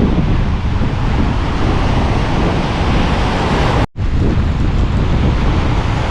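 Strong onshore wind buffeting the microphone over breaking surf, a loud, steady roar heaviest in the low end, cutting out for an instant about four seconds in.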